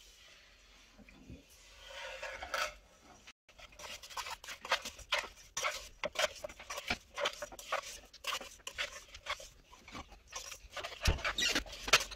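Wooden spatula scraping and clacking against a nonstick pan as sauce-coated rice cakes are stirred, in irregular quick strokes. The pan is not yet heated, so there is no sizzle.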